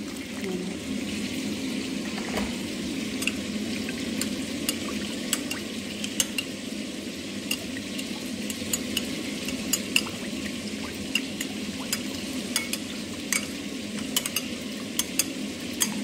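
Metal spoon stirring a thin sweet-and-sour sauce in a glass bowl, with frequent light, irregular clinks of the spoon against the glass over a steady background hum.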